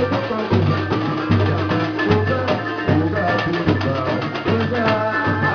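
Lively drum-led music: a low bass drum pulse about every three-quarters of a second under dense, fast percussion hits, with a melodic line over the top.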